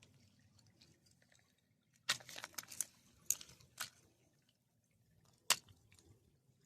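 Faint wet squishing with a cluster of sharp clicks and knocks about two to four seconds in and one sharp click near the end: stones and gravel being moved in shallow creek water.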